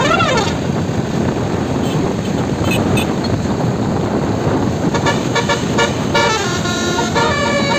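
Bus telolet horn (Basuri 12-note) playing rapid stepped-note melodies. It opens with a short falling sweep, gives way to a few seconds of engine and road noise, and starts up again about five seconds in.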